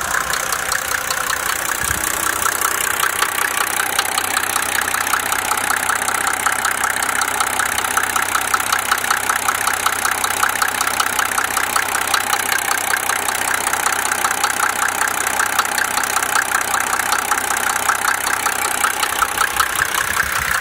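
Mercedes-Benz OM603 inline-six diesel engine running at a steady speed with a rapid, even knocking. The knock is the noise the owner is trying to identify.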